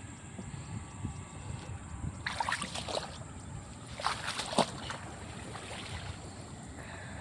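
Water splashing and sloshing in two short bursts, about two seconds in and again about four seconds in, over a low steady rumble.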